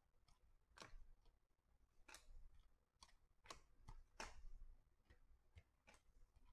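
Faint, irregular clicks of glossy football trading cards being slid one by one off a stack and snapped onto the pile in the other hand, about two a second.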